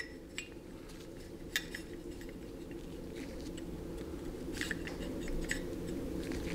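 Faint light clicks and taps of a micrometer being fitted onto a steel transmission pump slide by gloved hands, a handful of them scattered through, over a steady low hum.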